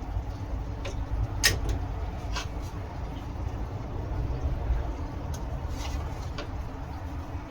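Scroll saw running, its motor and reciprocating blade making a steady low hum, with a few sharp clicks.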